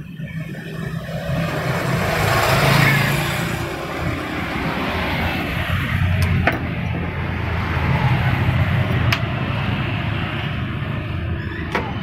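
A motor vehicle passing, loudest about three seconds in, over a steady low engine hum. A few sharp clicks sound later on.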